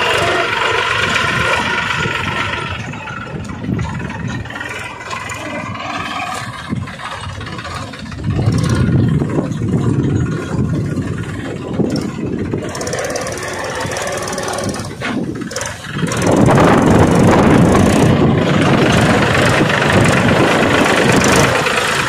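Small engine of a homemade mini tractor running as it drives along, getting louder about sixteen seconds in.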